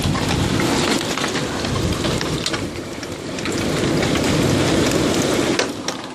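Heavy rain from a severe tornado-producing thunderstorm, pelting down hard with scattered sharp taps over a low rumble; it eases slightly near the end.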